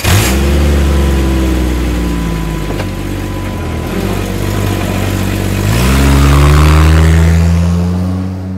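An engine revving: its pitch climbs at the start, sinks over the next few seconds, climbs again about six seconds in and holds high, then begins to fade near the end.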